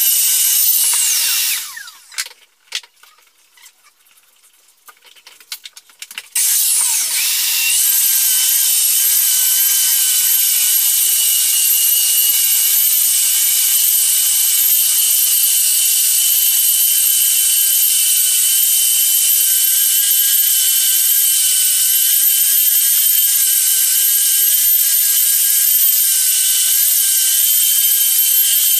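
Floor sanding machine motor running with a high whine. It shuts off and winds down about two seconds in, then a few seconds later starts up again with a rising whine and runs steadily.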